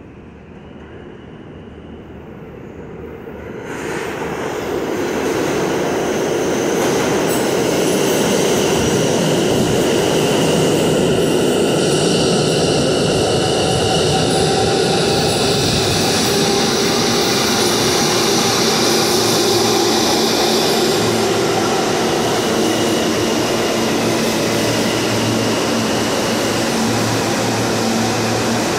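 R160 subway train pulling into the station: the rumble of wheels on the rails swells quickly a few seconds in and stays loud as the cars run past. A high steady whine sounds in the middle, and lower tones take over near the end as the train slows to a stop.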